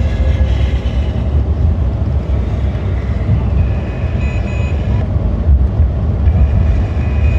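A steady, loud low rumble with no speech, with faint thin high tones coming in around the middle and again near the end.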